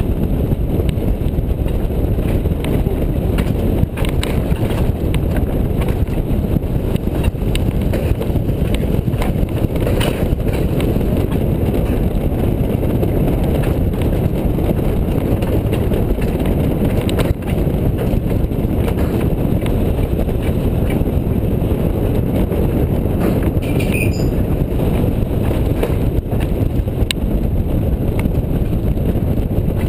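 Alpine coaster sled running fast down its steel rail track: a steady low rumble of the wheels rolling on the rails, with a few sharp clicks along the way.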